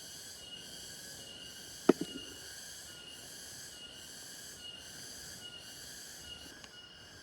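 Insects chirping in a steady, evenly pulsing high-pitched chorus, with one sharp click about two seconds in.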